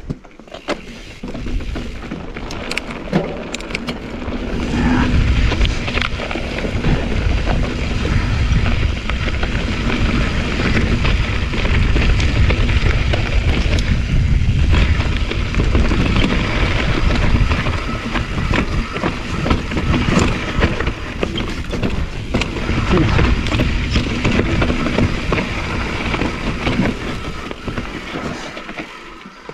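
Mountain bike riding a rocky singletrack trail: tyres crunching over stones, with frequent rattles and knocks from the bike over bumps and a steady rumble of wind on the microphone.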